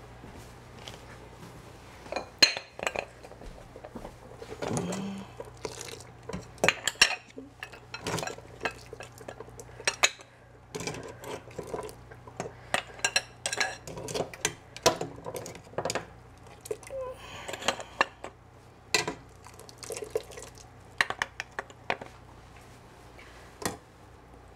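Steamed quahog shells and a metal utensil knocking and clinking against a stainless steel stockpot as the opened clams are lifted out, in many irregular clatters with short ringing, over a steady low hum.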